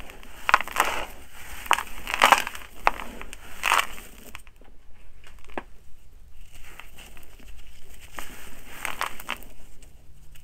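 Hands raking and crushing gritty dry soil mixed with small pebbles, crumbling soil clumps: scratchy, gritty crunching in bursts, densest in the first few seconds, then a quieter stretch before more crunches near the end.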